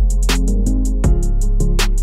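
Background music with a steady beat: evenly spaced high ticks over sustained bass and chords.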